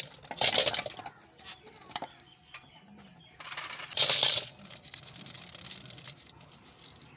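Small metal parts of a motorcycle carburetor clinking and rattling against a metal basin as the carburetor is handled and shaken. There are two louder, noisy bursts, one about half a second in and one about four seconds in.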